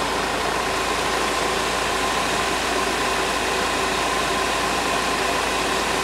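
Hyundai Terracan's two electric cooling fans, the newly fitted air-conditioner condenser fan and the radiator fan, both running steadily, with a rushing of air over the 2.9 diesel engine idling with the AC compressor engaged.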